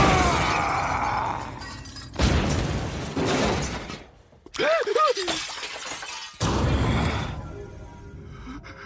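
A man's long yell fades out. Sudden crashes follow about two seconds in and again about six seconds in, with china plates and cups shattering. A short vocal sound comes between the crashes.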